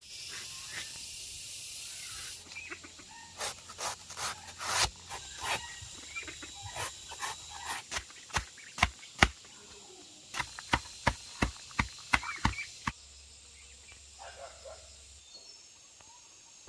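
An irregular series of sharp clicks and knocks, some loud, over a faint steady outdoor hiss, which opens with a couple of seconds of high hissing.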